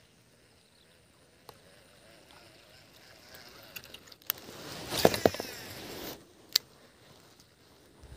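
Water splashing for about two seconds in the middle, with a few sharp clicks and knocks around it.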